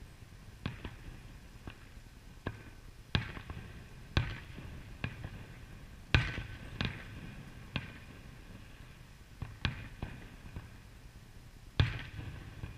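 Aerial fireworks shells bursting: more than a dozen sharp bangs at irregular intervals, some trailing off in a short echo. The loudest comes about six seconds in, with another strong one near the end.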